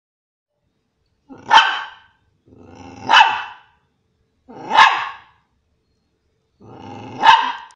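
A white spitz-type dog barking four times, about one and a half to two seconds apart, with a short low growl leading into most of the barks.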